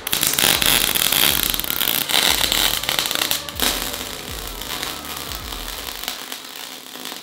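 MIG/MAG welding arc on steel tubing, a dense, steady crackle and sputter of wire-feed welding, a little quieter after about four seconds.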